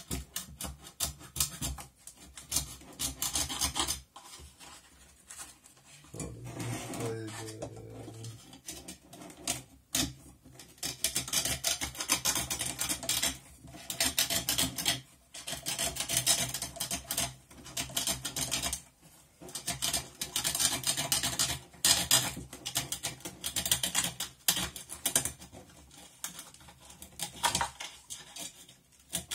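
A hand tool scraping and cutting at a subwoofer driver, metal rasping against the steel basket and the cone's edge in irregular strokes as the cone is worked free. A short low hum sounds about six seconds in.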